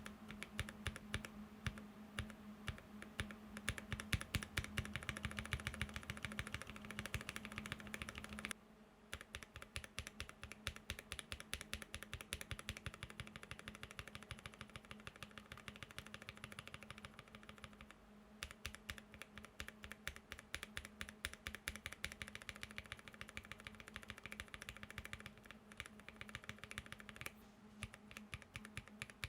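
Typing sound tests on a mechanical keyboard with NovelKeys Cream linear switches: rapid, continuous key clicks and bottom-outs. The switches are lubed with Vaseline, olive oil or Krytox 205g0, or cleaned to near stock, and the character of the typing changes three times as the test moves to another set of switches.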